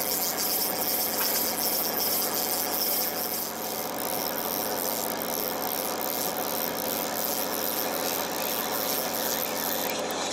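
A fishing boat's engine running steadily: a constant hum with a hiss over it.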